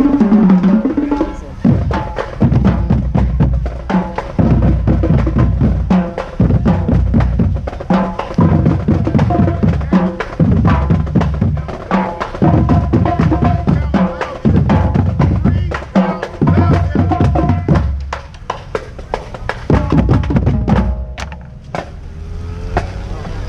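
Marching band drumline playing a marching cadence: snare drums rattling over heavy bass drum strokes in short repeating phrases about every two seconds, falling away near the end.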